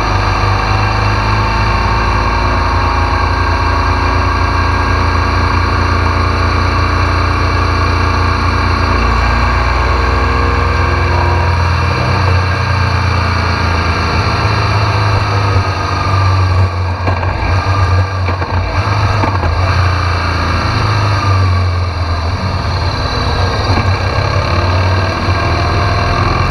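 BMW R1200 GS Adventure's boxer twin engine running while the motorcycle rides along, heard close up from low on the bike; the engine pitch rises and falls with the throttle.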